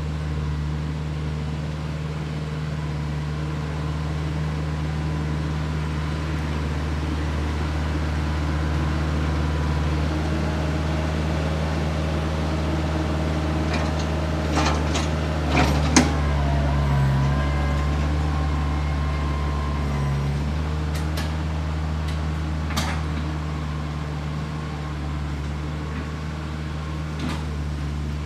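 Branson 4520 compact tractor's diesel engine running steadily as it drags a box blade over the ground, grading soil. It grows louder as it passes close about halfway through, when a few sharp knocks sound, and fades as it moves away.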